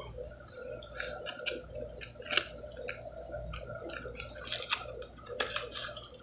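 Paper instruction sheet and plastic packaging being handled and unfolded, giving irregular crinkles and small clicks over a faint steady hum.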